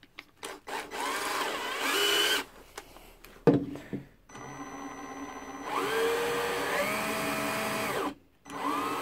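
Einhell TE-CD 18/40 cordless drill-driver run with no load, a drill bit spinning in its chuck, in several short trigger pulls. Each time the motor whine rises in pitch as it spins up, holds steady, then cuts off. There is a sharp click about three and a half seconds in.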